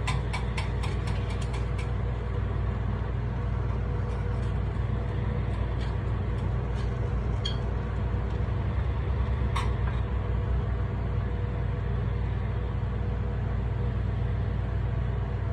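Steady low drone of the kitchen exhaust hood over a takoyaki griddle, with quick clicking of metal picks tapping the griddle as the balls are turned in the first two seconds, then a few scattered taps and one sharper click about ten seconds in.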